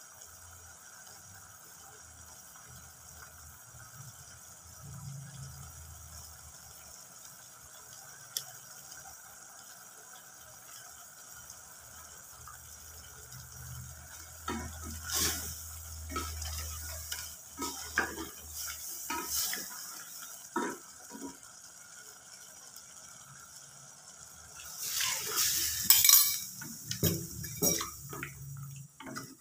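Wooden spatula stirring in an aluminium pressure cooker pot, scraping and knocking against the metal sides in irregular strokes. About 25 seconds in, a loud hissing splash as water goes into the hot pot, then more stirring and knocking.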